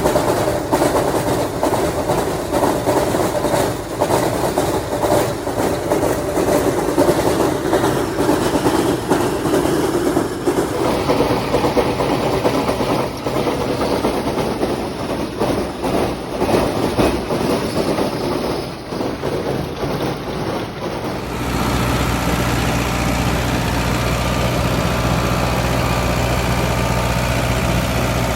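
Tractor engine running with machinery clattering over it. About two-thirds of the way through the sound changes suddenly to a steady engine idle with an even low hum.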